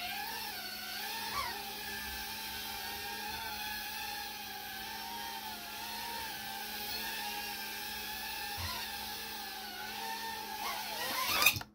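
Tiny whoop FPV quadcopter's small brushless motors and propellers whining in flight, the pitch wavering up and down with throttle and stick movement. Near the end there is a brief loud burst, and then the whine cuts off suddenly as the motors stop.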